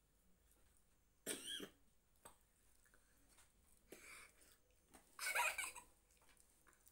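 A child's short, muffled vocal outbursts through a full mouth, three in all, the last the loudest, between quiet stretches of eating.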